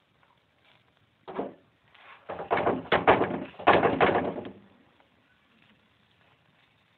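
Wooden spatula scraping and pressing a folded wheat dosa against a nonstick tawa. One short scrape comes about a second in, then a run of scraping strokes for about two seconds.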